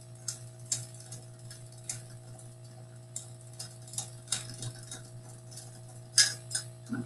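Clockwork tin wind-up elephant toy, made in Germany in 1950, running: its mechanism gives irregular light clicks and ticks, a few a second, with a louder pair of clicks about six seconds in.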